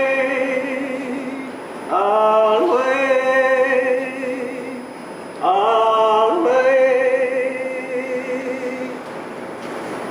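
Unaccompanied singing: three long phrases, each scooping up into a held, wavering note, the last fading out near the end.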